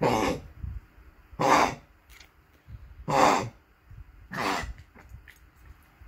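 Small Chihuahua-type dog coughing, four short coughs about a second and a half apart.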